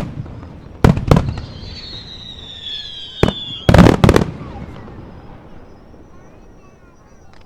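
Aerial fireworks shells bursting: two sharp bangs about a second in, a falling whistle, then a louder cluster of bangs a little past the middle, their echoing rumble fading away afterwards.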